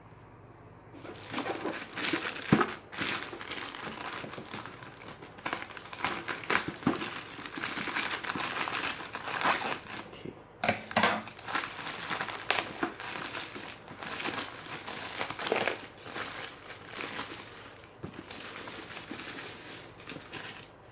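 Plastic courier pouch being torn open and crumpled by hand: a long run of crinkling with sharp rips, starting about a second in.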